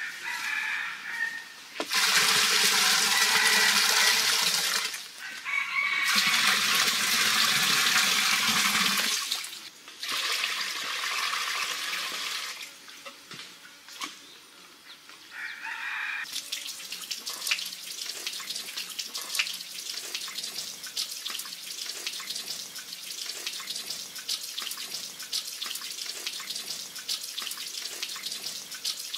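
Water poured out of a clay pot in three long gushes, then a steady trickle of running water with small drips and splashes.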